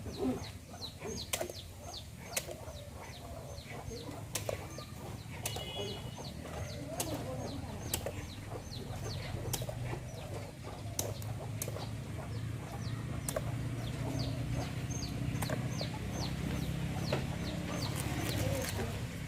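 Chickens clucking with many short, high, falling peeps, several a second throughout, and sharp clicks about once a second. A low steady hum grows louder in the second half.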